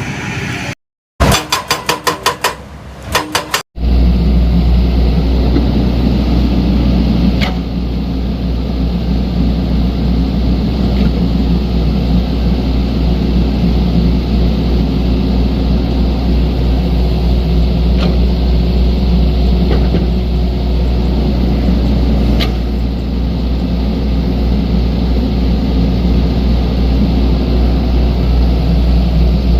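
Diesel engines of a mini bulldozer and mini excavator running steadily, a deep low rumble that starts abruptly about four seconds in, with a few sharp knocks now and then. Before it comes a short, quick series of rapid clicking pulses.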